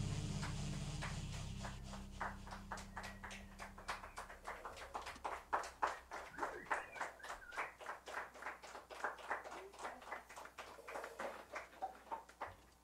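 The last low note of a six-string electric bass rings out and fades over the first couple of seconds. A small audience then claps steadily, and the clapping thins out near the end.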